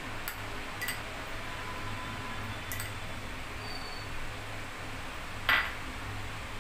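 Steel spoon clinking lightly against dishes a few times, with one louder clink against a small ceramic bowl about five and a half seconds in, over a low steady hum.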